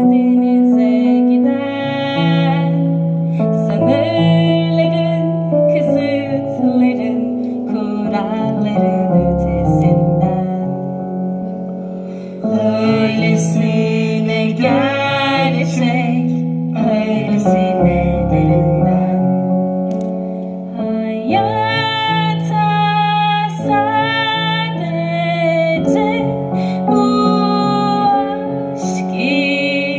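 A slow song from a stage musical: a voice singing long, wavering notes over instrumental accompaniment.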